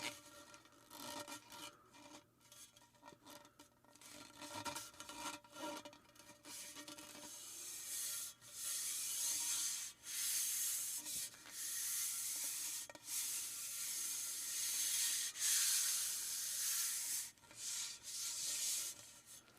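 Sound effect of a fuel rod being handled: rubbing and scraping. It starts as a string of short scrapes and clicks. From about eight seconds in it becomes long hissing rubs of a few seconds each, with brief breaks between them.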